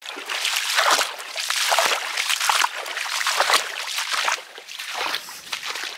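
Rubber boots wading through a muddy puddle, splashing and sloshing with each step, about one step a second, quieter over the last second or so.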